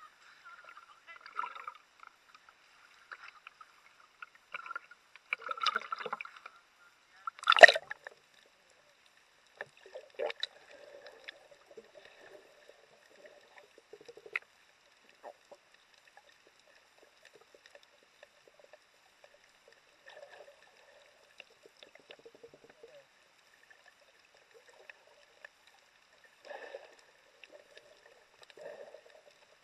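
Muffled water sounds through an action camera's waterproof housing, partly underwater: scattered splashing and bubbling with short knocks, the loudest a sharp knock about seven and a half seconds in.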